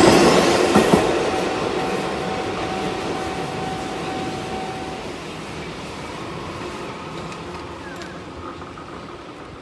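Eizan Electric Railway electric train passing close and receding, its running noise fading steadily away. A thin steady whine carries on over it and stops about halfway through.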